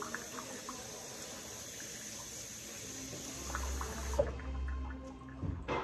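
Kitchen faucet running in a steady stream into a plastic bowl, shut off about four seconds in. A low hum follows, with a single knock near the end.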